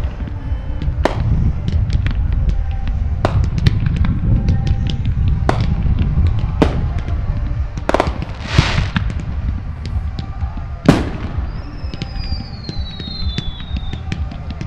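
Fireworks display: aerial shells bursting with sharp bangs every second or two, with crackling between them, a hissing burst about halfway through and a falling whistle near the end, over a steady low rumble.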